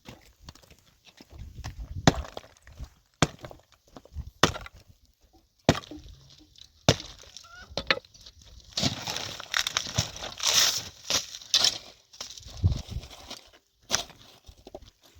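Hard objects being knocked and handled: five sharp knocks about a second apart, then a few seconds of scraping and clattering.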